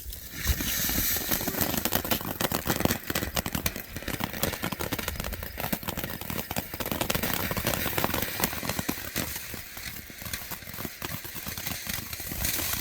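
Small 6-inch Mighty Max fountain firework burning: a dense hiss full of rapid crackling that sets in suddenly.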